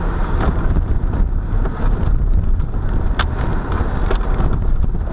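Cabin noise of a Volkswagen Passat B6 driving slowly over a rutted, muddy dirt track: a steady low rumble from the car and its tyres on the rough ground, broken by a few sharp knocks.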